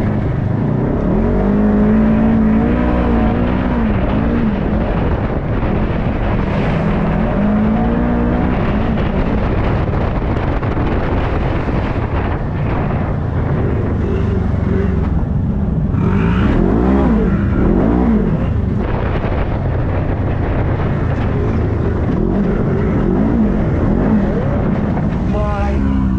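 Polaris RZR 1000 side-by-side's engine running under hard throttle as it is driven around a dirt track, its pitch rising and falling again and again as it accelerates and backs off, over a steady rumble and rushing noise.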